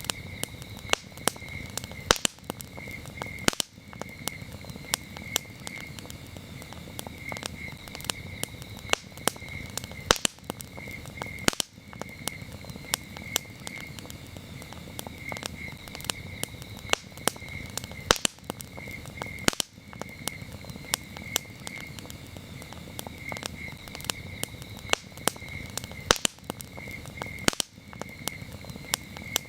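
Wood campfire crackling, with frequent sharp, irregular pops and snaps over a steady low rush of burning. Crickets chirp throughout behind it in short, repeated pulsed groups.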